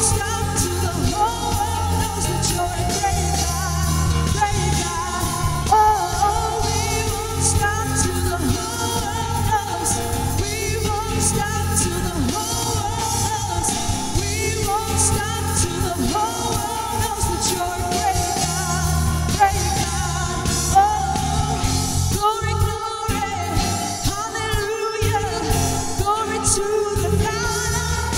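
Live worship music: a band with drums playing while voices sing, with the bass and drums dropping out briefly about 22 seconds in.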